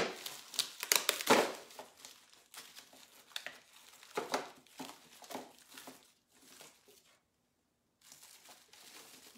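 Packing material crinkling and rustling as a box is rummaged through by hand, busiest in the first second and a half, then in scattered bursts that thin out.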